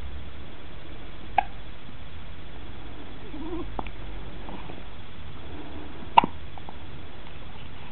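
Newborn baby hiccuping: two sharp, short hiccups about five seconds apart, the second the louder.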